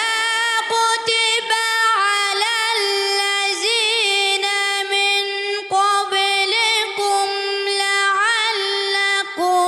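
A 13-year-old boy reciting the Quran in the melodic tajweed style into a handheld microphone: one solo voice holding long, high notes with wavering ornaments, with short breaks for breath.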